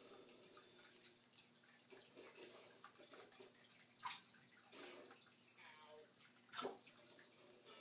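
Small water splashes and drips in a shallow water dish as a snake strikes at and grabs a live fish, with a few sharp splashes in the second half, the loudest near the end.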